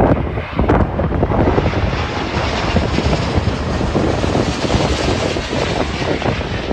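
Airbus A350 airliner's Rolls-Royce Trent XWB jet engines on landing approach as it passes low overhead: a loud, steady rushing jet noise that grows fuller in the middle and eases slightly near the end.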